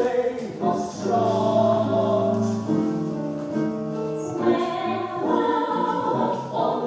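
Several voices singing together in harmony, holding notes that change every second or so.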